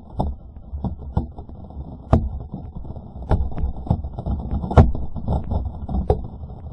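Water spray from a water-rocket launch falling back onto the camera and launcher: irregular sharp taps, several a second and uneven in strength, over a low rumble of wind on the microphone.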